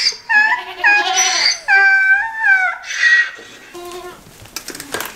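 Goats bleating: a quick run of loud, high calls one after another, some dropping in pitch at the end. The calls stop a little past halfway, leaving faint rustling and clicks.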